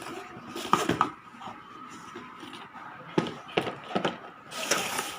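A few sharp clicks and knocks, two about a second in and three more a little past the middle, then a short rustling hiss near the end.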